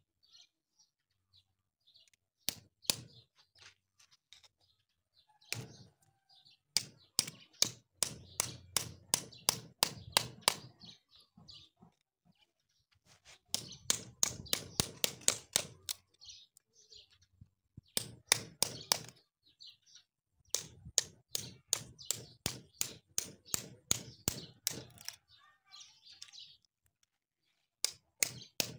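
A steel hoof-trimming blade cutting into a cow's hoof horn in quick, crisp strokes, about three or four a second, in runs of a few seconds with short pauses between them.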